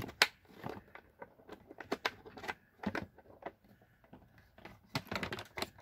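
Hard plastic tool case handled on a workbench: a scatter of sharp clicks and knocks as its lid and latches are worked, with two loud knocks right at the start and a quick run of clicks near the end.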